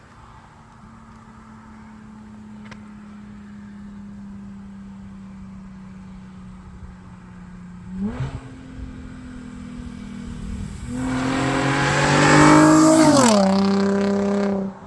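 Nissan 350Z's V6 running through an aftermarket Tomei dual exhaust: a steady low engine note, a short blip of revs about eight seconds in, then a hard, loud acceleration from about eleven seconds whose pitch drops near the end before the sound cuts off suddenly.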